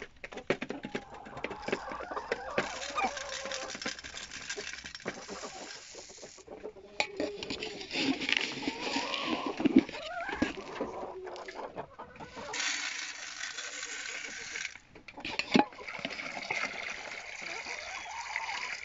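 Chickens clucking now and then, with stretches of rustling noise.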